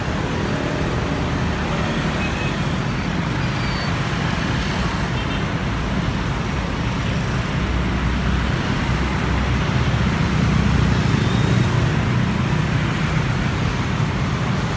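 Steady road traffic: motor scooters and cars passing close by, with a low engine hum and road noise that swells a little about ten seconds in.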